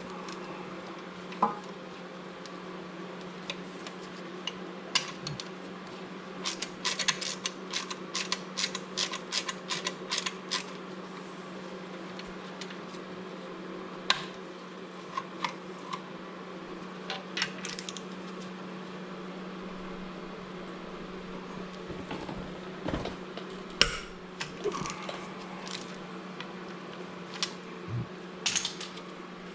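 Metal hand tools clicking and clinking against steel under the engine, with a quick run of clicks partway through and scattered knocks later, over a steady low hum.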